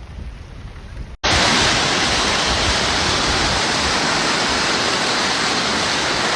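Loud, steady rush of floodwater, starting abruptly about a second in after a quieter low rumble.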